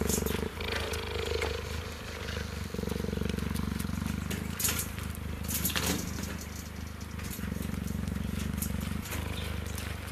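Cheetah purring: a steady, low, rumbling purr in long stretches that break and shift with its breathing, about half a second in, near three seconds and near nine seconds. It is a content purr while it is being groomed. A couple of sharp clicks come around the middle.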